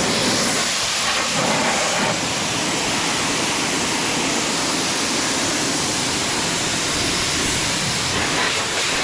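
Pressure washer spraying water: a loud, steady hiss of high-pressure spray.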